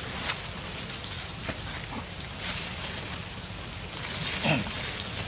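Outdoor ambience: a steady hiss with scattered light clicks and rustles, then a short gliding call and a brief high, falling squeak near the end.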